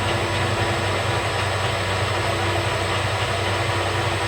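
Metal lathe running steadily while a center drill cuts into the end of a bushing blank to mark its center.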